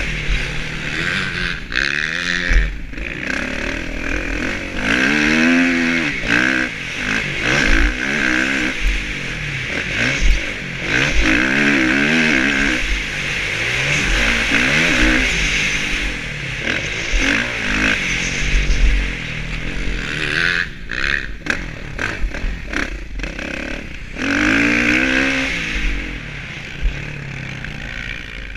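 Kawasaki KX-F four-stroke motocross bike engine revving up and falling off over and over as it is ridden around a dirt track, with wind rumbling on the microphone and the bike clattering over bumps.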